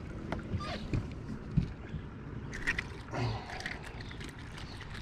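Lake water lapping and sloshing against a small fishing boat's hull, with a few light knocks on the boat in the first two seconds.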